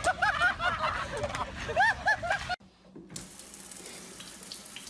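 Excited voices shouting; about halfway through they cut off, and after a short gap a kitchen tap runs steadily into a sink.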